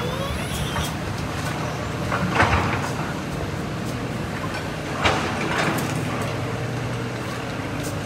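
Diesel engines of excavators demolishing buildings, running with a steady low hum, with two short, louder bursts of noise about two and a half and five seconds in.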